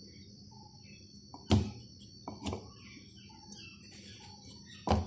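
Chopped ginger being pounded with a pestle in a mortar: three sharp strikes at uneven intervals, about a second and a half in, a weaker one a second later, and another near the end.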